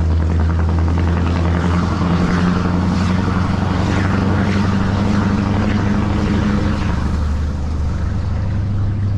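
Scania R580's 16.4-litre V8 diesel running steadily under way with its exhaust flap open, a deep, even drone heard from inside the cab.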